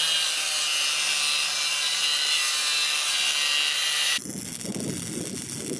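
Angle grinder with a thin cut-off disc cutting into the steel of a broadaxe head: a loud, steady, high hiss over the motor's hum. About four seconds in it cuts off abruptly and a lower, rougher, quieter sound follows.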